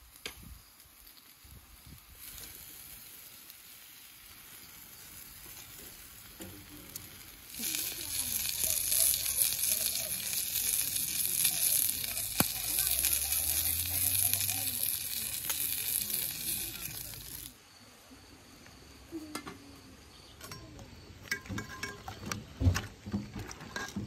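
Food sizzling on a metal grill tray over hot charcoal. The sizzling is loud and steady for about ten seconds in the middle, then cuts off suddenly. A few light clicks and clinks follow near the end.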